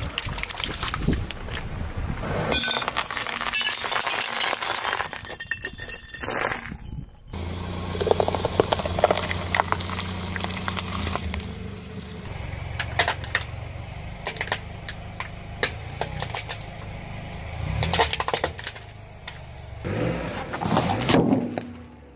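Car tyre rolling over and crushing objects one after another: water balloons bursting, then a green bell pepper crunching flat. Throughout there is a run of sharp cracks and snaps as things break.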